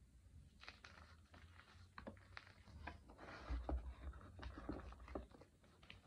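Fingers crushing and crumbling blocks of soft, powdery chalk: a run of small dry crunches and crackles, busiest a little past halfway, where a few dull low thumps come in.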